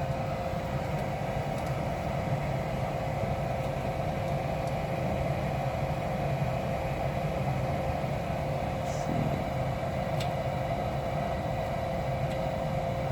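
Gas furnace running with its burners lit: a steady, even hum and rush of fans with a constant whining tone over it.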